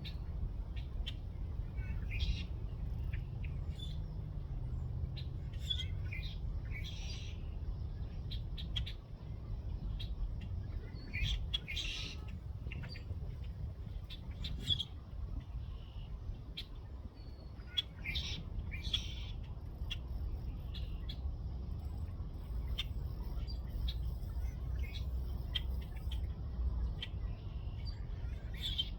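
Birds chirping, with many short calls scattered through, over a steady low rumble.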